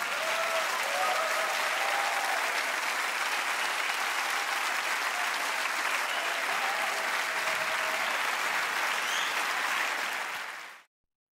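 Theatre audience applauding steadily at the end of a performance; the applause cuts off abruptly near the end.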